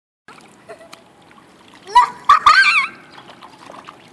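A child's loud, high-pitched, wavering squeal, rising at the start, about two seconds in and lasting about a second, over a faint steady hiss of rain.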